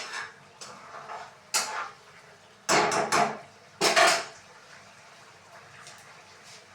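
Metal spoon and cooking pot clattering: about four knocks and scrapes over the first four seconds or so.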